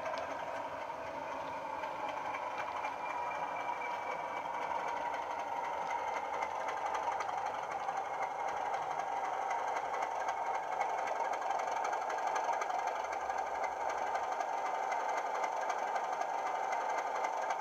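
Class 37 diesel engine sound (English Electric V12) from a DCC sound decoder, played through the 25x25x7 megabass speaker fitted in a Bachmann OO gauge Class 37 model as it runs, a steady engine note growing slowly louder.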